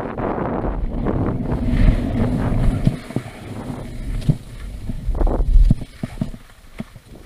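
Wind noise on the microphone from skiing downhill, with skis scraping over packed snow. The rush is loudest at first and drops off about three seconds in, leaving scattered scrapes and knocks.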